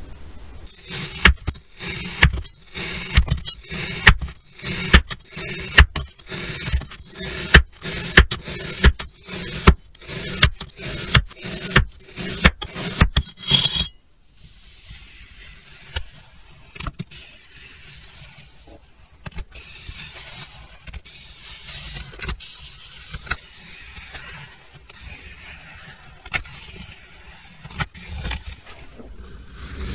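Kinetic sand being cut: a run of crisp, crunchy strokes, about one to two a second. About halfway it gives way to a softer, steady scraping as a metal ice-cream scoop drags through the packed sand.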